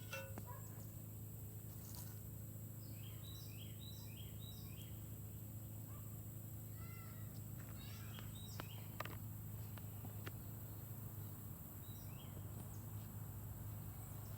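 Birds chirping outdoors in short quick calls, a cluster of chirps a few seconds in and again later, over a steady low background hum, with a few faint clicks.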